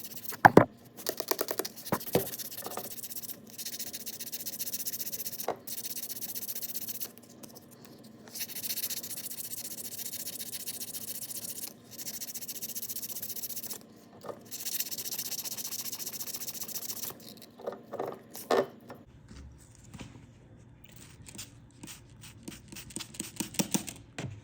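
800-grit sandpaper rubbing on cured JB Weld over a Mercury outboard propeller shaft's oil-seal surface, smoothing the epoxy repair flush: stretches of steady scratchy rubbing a few seconds long with short pauses between. There is a sharp knock about half a second in, a few lighter knocks, and quieter handling noises over the last few seconds.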